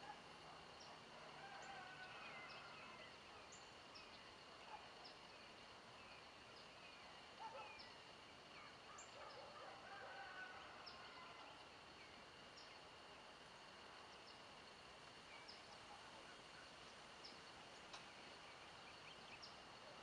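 Faint outdoor nature sounds: birds calling, with short sharp high chirps about once a second and scattered lower calls, over a steady high-pitched insect hum.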